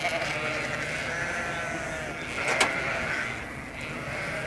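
A flock of Dohne ewes bleating, many calls overlapping. A single sharp click a little past halfway is the loudest moment.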